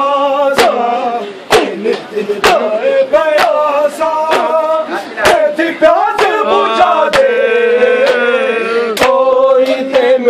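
Male mourners chanting a lament in unison, with rhythmic chest-beating (matam) slaps landing about once a second.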